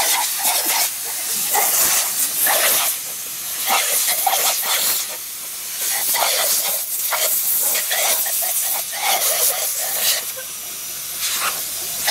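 Compressed air hissing out of the open valve of a Husky portable air tank as it is vented from about 60 psi. The hiss rises and falls again and again as two dogs bite and snap at the jet.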